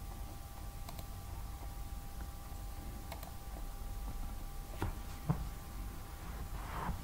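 A few sharp, isolated clicks of a computer mouse over a steady low electrical hum with a faint high steady tone; a brief rustle comes near the end.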